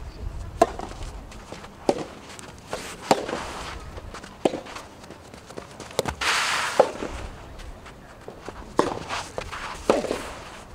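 Soft tennis rally: the rubber ball popping off rackets and bouncing, starting with the serve, about eight sharp pops spaced a second or two apart. A longer scuffing hiss about six seconds in, as of shoes sliding on the court.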